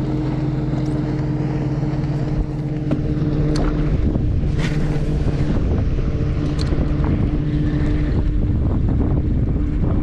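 Boat motor running steadily with a low, even hum, under wind buffeting the microphone and water noise, with a few light knocks.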